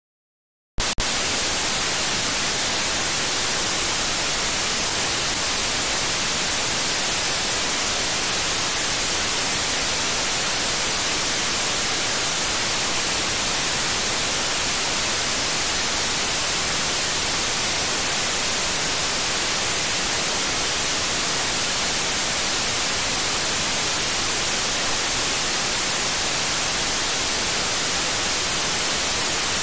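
Radio receiver static from an RTL-SDR dongle running in SDR#, demodulating an empty 433.92 MHz channel in USB mode: a steady hiss, strongest in the high frequencies. It switches on suddenly with a click about a second in, as the radio is started.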